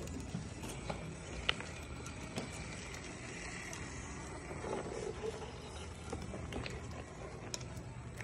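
Electric RC rock crawler's motor and gears whirring low and steady as it crawls slowly over rocks and pavers, with a few sharp clicks, the loudest about a second and a half in.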